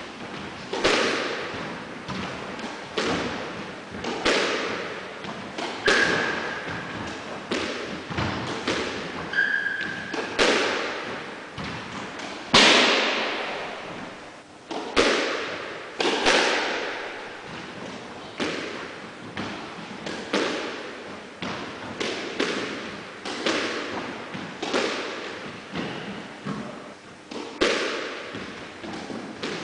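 Squash rally: a squash ball is struck by rackets and smacks off the walls and floor. It is a steady run of sharp cracks and thuds, each ringing on in the echo of the enclosed court.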